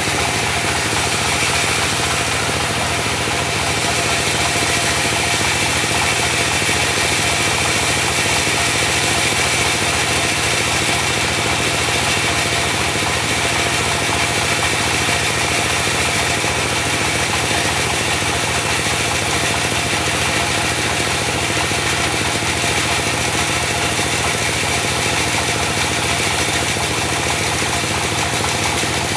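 Diesel engine of a mobile band sawmill running steadily, with a fast, even low knocking.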